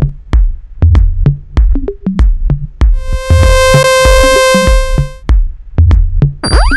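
Electronic music: a drum-machine beat with a long held synthesizer note in the middle and a quick rising-then-falling synth sweep near the end.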